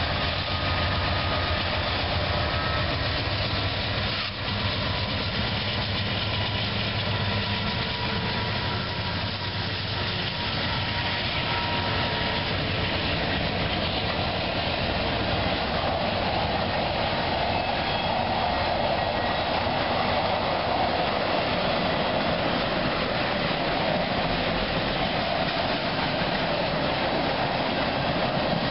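Diesel freight train passing: the locomotive's engine rumbles low in the first several seconds, then a long string of tank cars rolls by with steady wheel-on-rail noise.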